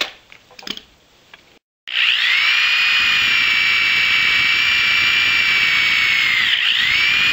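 Electric drill boring a hole in the metal slide part of a robot foot: a few handling clicks, then from about two seconds in a steady high whine, which sags briefly near the end and picks back up.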